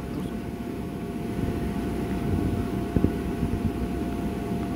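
A steady mechanical drone with a constant whine running through it, and a brief knock about three seconds in.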